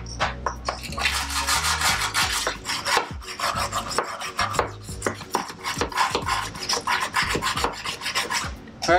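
Hand wire brush scrubbing rust off a corroded seam in a steel van floor, in quick repeated rasping strokes, loosening flakes of rust to prepare the metal for rust treatment.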